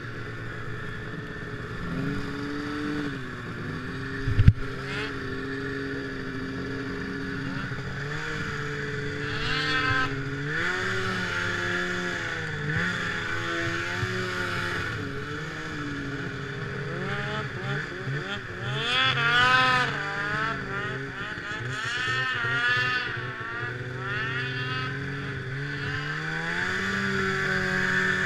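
Snowmobile engine running under load, its pitch rising and falling again and again as the throttle is worked. A single sharp thump comes about four and a half seconds in.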